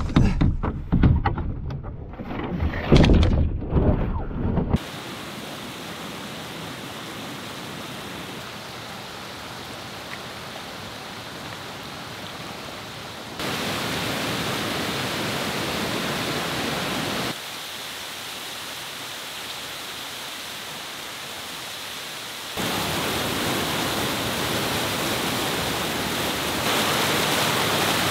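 For the first few seconds, irregular knocks and thumps of a canoe being carried overhead on a portage trail. Then a whitewater cascade rushing over rocks, a steady noise of water that is louder in some stretches than others.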